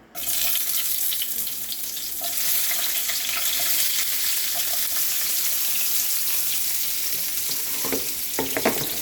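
Food frying in a hot pan, a steady sizzle that starts suddenly as something goes into the hot oil. There are a few knocks of a utensil against the pan near the end.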